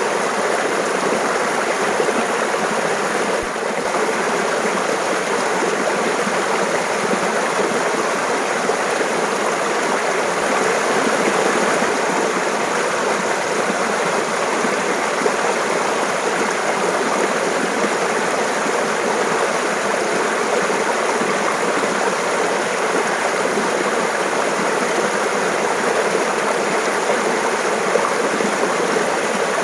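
Mountain stream running and babbling steadily, an even rush of water with one momentary dip in level about three and a half seconds in.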